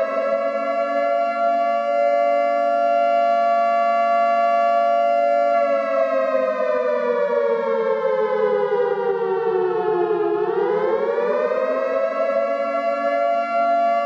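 Civil defense siren wailing with two notes sounding together: it holds a high pitch, slowly winds down over about five seconds, then quickly climbs back up and holds again. It sounds as a take-cover warning against an incoming nuclear attack.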